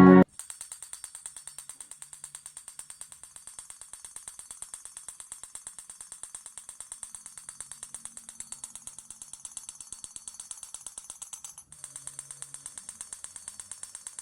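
Homemade rain alarm's small DC motor running, setting off a fast, steady train of metallic clicks with a short break about twelve seconds in.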